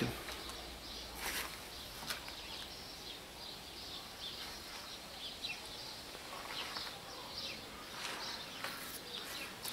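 Quiet outdoor backyard ambience with a few faint, short bird chirps scattered through it.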